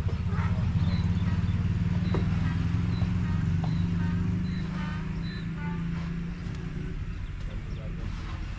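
Single-cylinder stationary diesel engine, a locally made copy of a Ruston, running with a steady low beat. It grows somewhat quieter from about five seconds in. Faint bird chirps are heard over it.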